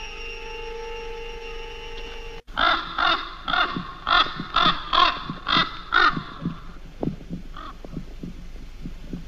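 A steady droning musical tone cuts off suddenly, then a bird gives about nine loud calls in quick succession, about two a second, on the film soundtrack. Faint scattered clicks follow near the end.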